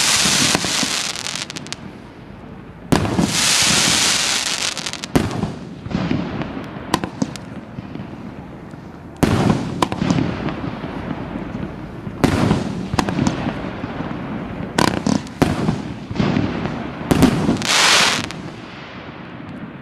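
Asgard SU 05-76 multi-shot firework cake firing, its shells bursting overhead one after another with sharp bangs. Several bursts are followed by a second or two of dense crackling glitter, the loudest around three to five seconds in and again near the end.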